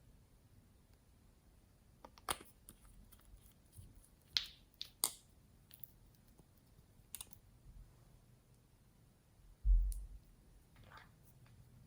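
Glossy slime being mixed and pressed by hand: scattered sticky clicks and pops, with one dull low thump near the end.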